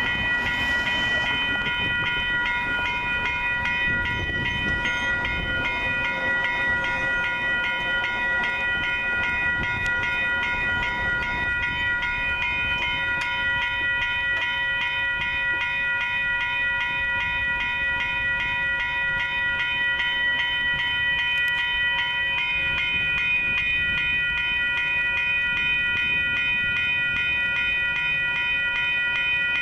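Railroad grade-crossing warning bell ringing continuously in rapid, evenly repeated strokes, with a low rumble underneath.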